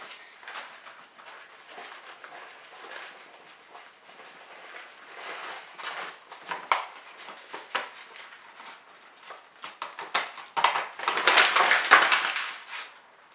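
Flour poured from a paper bag into a stainless steel pot: soft rustling and crackling of the paper bag with the hiss of flour sliding in, louder and busier for about two seconds near the end.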